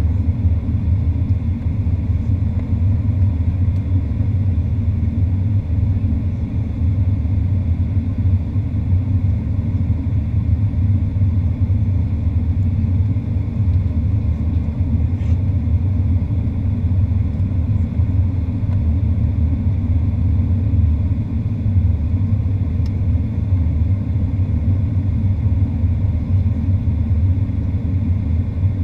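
Steady low rumble inside the cabin of a Boeing 737-800 in flight: engine and airflow noise from its CFM56 turbofans, heard through the window seat.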